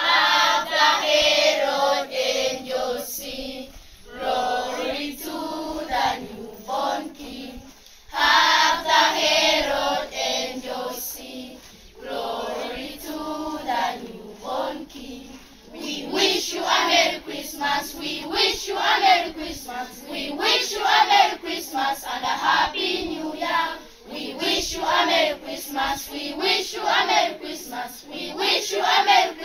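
A group of children and teenagers singing together as a choir, in sung phrases that swell louder about every eight seconds.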